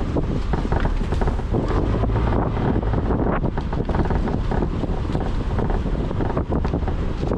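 Wind buffeting a GoPro's microphone on a moving car, over the steady low rumble of the car driving down the road.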